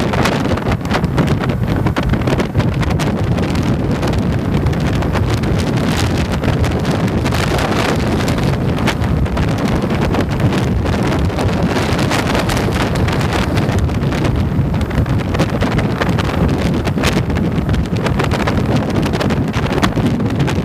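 Wind rushing over a motorcycle-mounted microphone, mixed with the bike's engine and tyre noise while cruising steadily along a road.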